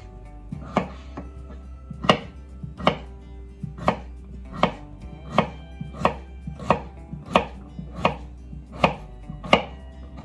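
Chef's knife dicing a peeled russet potato by hand on a wooden cutting board: a steady rhythm of sharp knocks as the blade cuts through and strikes the board, somewhat more than one a second.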